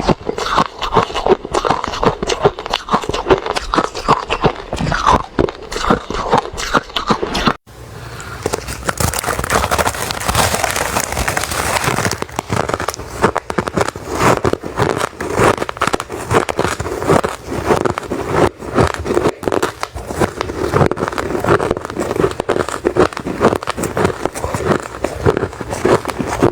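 A person chewing refrozen crushed ice close to the microphone: a dense, continuous run of crunches, broken by a momentary dropout about seven and a half seconds in.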